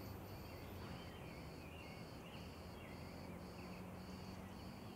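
Faint crickets chirping steadily, about two chirps a second, over a low background hum.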